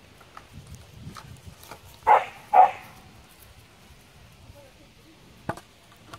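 A puppy giving two short barks half a second apart, with light clicks from it playing with an empty plastic bottle and one sharp click near the end.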